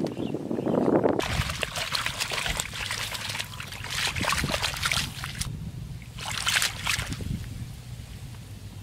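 Water splashing and trickling around a green plastic basket holding live fish in shallow paddy water, with two louder spells of splashing near the middle. Before that, about the first second, there is a short rustle of handling the basket on grass.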